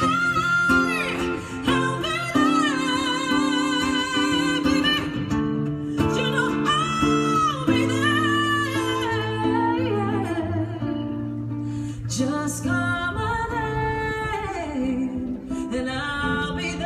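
Live music by a performing duo: a voice singing long, wavering held notes over a steady instrumental accompaniment.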